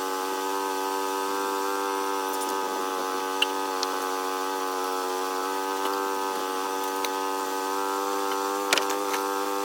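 Small sawmill's engine running at a steady speed, with a sharp tick a few seconds in and a knock near the end.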